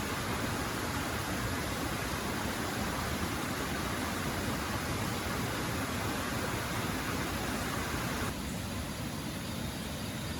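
Steady rushing water with an even hiss; the brighter part of the hiss drops away abruptly a little over eight seconds in.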